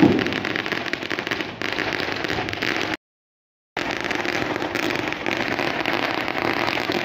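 Many fireworks going off at once: a dense, continuous crackle of rapid bangs, with one loud bang right at the start. The sound drops out completely for under a second about three seconds in.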